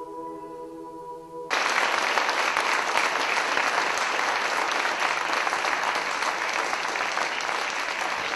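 A mixed choir holds a sustained final chord. About a second and a half in, the chord breaks off abruptly and loud audience applause begins and carries on.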